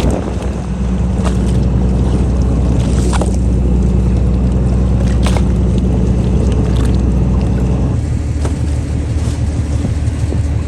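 Fishing boat's engine running steadily, its pitch changing about eight seconds in, with scattered sharp knocks and clicks on deck.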